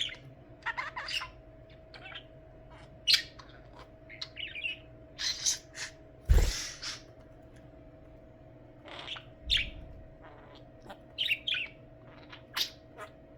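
Pet budgie chirping in many short, irregular calls. About six seconds in there is a louder, harsher burst together with a low thump.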